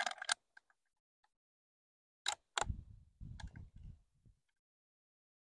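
A few faint clicks, then a single sharp crack of a .22 Short fired from a Glenfield Model 25 bolt-action rifle about two seconds in, followed by a second and a half of lower knocks and rumble.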